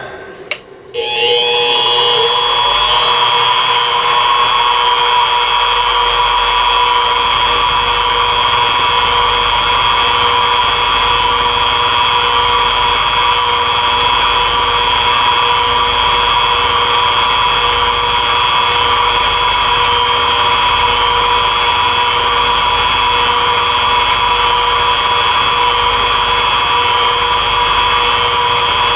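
Benchtop mini mill starting up about a second in, its whine rising and then holding steady, as the spindle drives an end mill along white Delrin plastic in a light finishing pass of about 5 thou.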